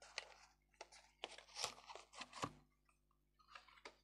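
Cardboard box and plastic eyeshadow palette being handled as the palette is taken out of its packaging: an irregular run of rustles, scrapes and sharp clicks, busiest about a second in.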